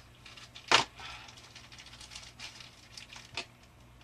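Objects being handled on a kitchen counter: one sharp clack a little under a second in, then light rustling and small scattered clicks, with another click near the end.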